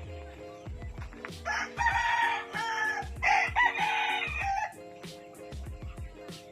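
A rooster crowing loudly, starting about a second in and lasting about three seconds in two parts, over background music with a steady beat.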